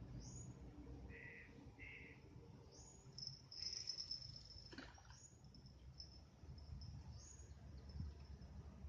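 Faint, high-pitched wildlife chirps repeating every second or so over a low steady background rumble, with a brief falling sound about five seconds in.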